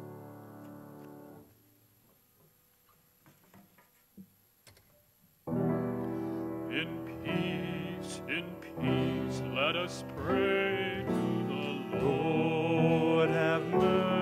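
Church music with held instrumental notes stops about a second and a half in. After a few seconds of near silence with a few faint clicks, music starts again with a voice singing over instrumental accompaniment.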